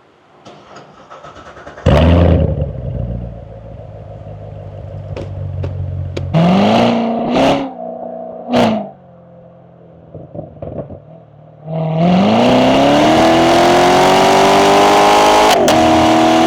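Car engine starting about two seconds in, then idling with three short throttle blips. About twelve seconds in it is revved up and held at high revs.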